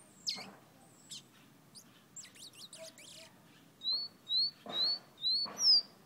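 Caged songbird known as a fire red singing: a few sharp falling notes and a quick twittering run, then a series of five short rising whistles about half a second apart, the last one higher and loudest.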